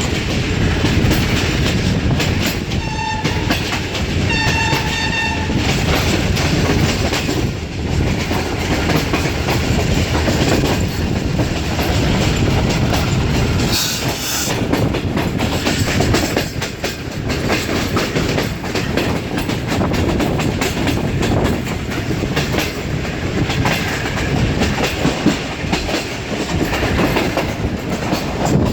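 Express passenger train running at speed, its wheels clattering steadily over the rail joints. The locomotive horn sounds twice, a short blast about three seconds in and a longer one a second later.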